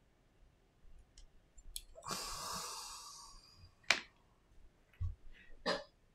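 Handling noises of an iPhone 7 display assembly on a silicone repair mat: a rustle about two seconds in that fades over a second and a half, a sharp click about four seconds in, then a soft knock and a few clicks near the end.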